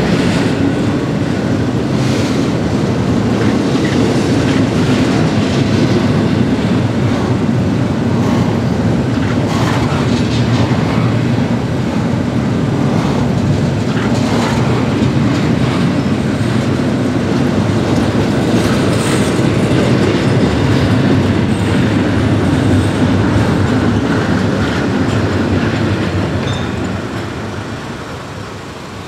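Double-stack container freight train rolling past at a grade crossing: a steady rumble with clickety-clack of wheels over the rails. It fades over the last few seconds as the end of the train goes by.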